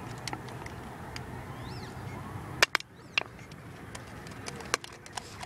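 A few sharp, close clicks and knocks, the loudest a little past halfway and another near the end, over a steady low outdoor rumble, with a faint high chirp early on.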